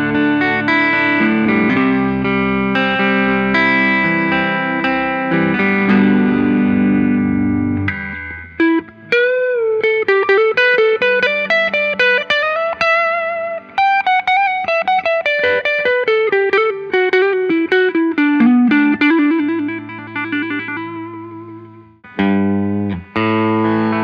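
1970 Gibson ES-330 hollow-body electric guitar with P-90 pickups, played amplified: strummed chords for about the first eight seconds, then a single-note melody with string bends and vibrato. The line settles onto a held low note, breaks off briefly, and chords start again near the end.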